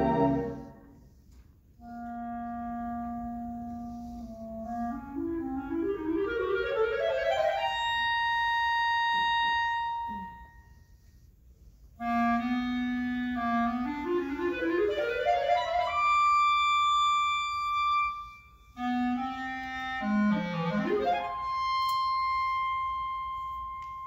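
Solo clarinet playing unaccompanied. Three times, a held low note leads into a fast rising run that ends on a long high note. There are short pauses between phrases, and the last high note fades away near the end.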